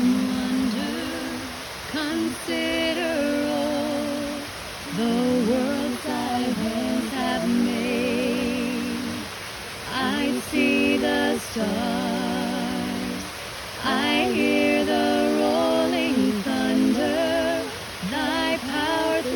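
A woman singing a slow worship melody unaccompanied, in long held phrases with vibrato and short breaths between them, over a steady hiss of falling water.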